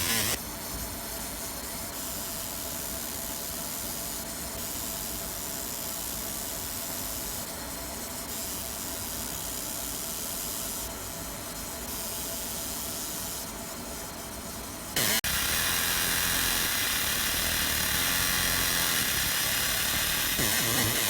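50 W fiber laser marking machine running a deep-engraving pass on metal: a steady hiss, with a sharper high hiss coming and going every few seconds. About 15 seconds in it switches abruptly to a louder, steady machine noise.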